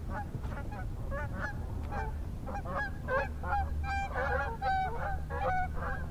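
Geese honking over and over in a flock, the honks coming thicker and louder in the second half.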